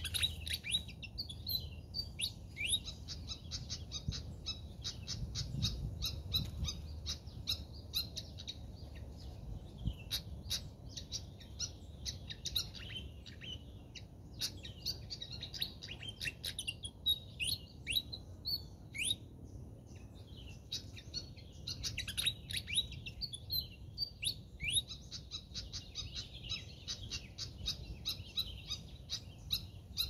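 Small songbirds calling busily: rapid runs of sharp ticking chips mixed with short upward-sweeping whistled notes, going almost without a break.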